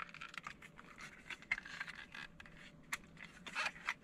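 Faint scraping and small clicks of a plastic solar fence light being handled and turned over in the hands, with a louder scrape about three and a half seconds in.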